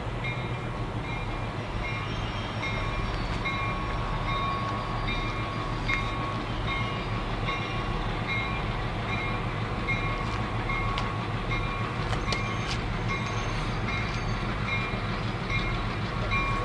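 A train led by three MTA diesel switcher locomotives rolls slowly along the track, the engines running with a steady low rumble. A short ring repeats evenly, a little more often than once a second.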